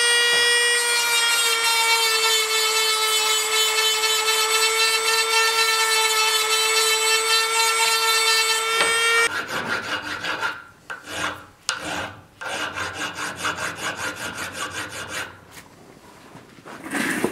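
A steady, high whine over a rasping hiss for the first nine seconds, which cuts off suddenly. It is followed by a hand file rasping in uneven strokes, with short pauses, across a steel sword-handle part clamped in a vise.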